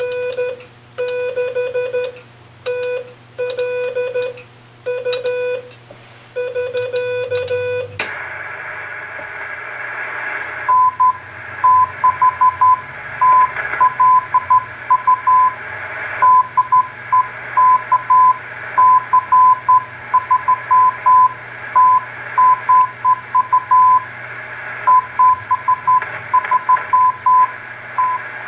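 Morse code on a ham radio station. For about the first eight seconds a lower keyed tone sounds out slow dashes and dots. A sharp click follows, then the receiver's band static, with another station's faster, higher-pitched Morse code coming through it.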